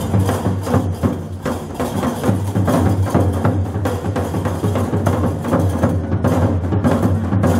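Music with drums and percussion over a steady bass.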